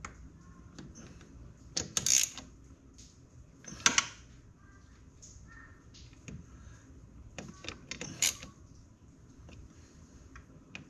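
Hand tools clinking and clicking against metal while the front-differential locker actuator's bolts are snugged down, with sharp clanks about 2, 4 and 8 seconds in and lighter ticks between.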